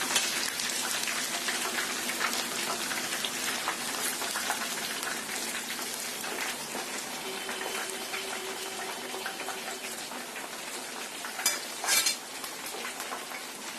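Chicken pieces deep-frying in hot oil: a steady crackling sizzle that eases off slowly, with a couple of brief louder clicks near the end.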